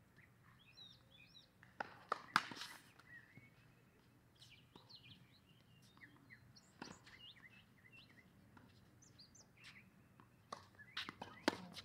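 Birds chirping in short high calls, with sharp knocks of a tennis ball being struck and bouncing: the loudest group about two seconds in, one near seven seconds, and a cluster near the end.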